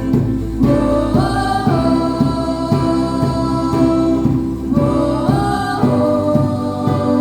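Group of voices singing a gospel worship song with instrumental backing, held notes sliding upward twice over a steady beat.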